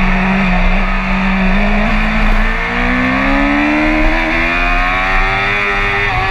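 BMW sport bike's engine heard from onboard at track speed, with wind rush over it: the note holds steady for the first couple of seconds while leaned through a corner, then rises steadily as the throttle opens on the exit, dipping near the end.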